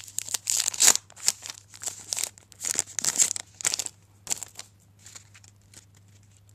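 A trading card pack's wrapper being torn and crinkled by hand, in quick rustling bursts for about four seconds. Then a few faint clicks follow as the cards are handled.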